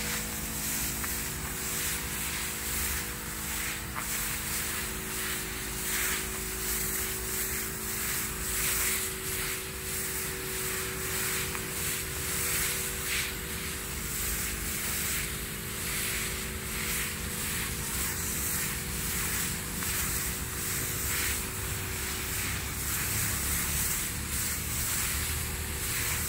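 Engine-driven high-pressure sprayer running steadily, its motor hum under the continuous hiss of spray from a hose-fed spray gun.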